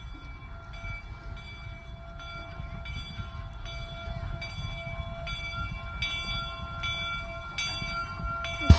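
Replica Union Pacific No. 119 4-4-0 steam locomotive approaching, its running making a regular beat about three times every two seconds that grows louder as it nears. A single sharp thump comes just before the end.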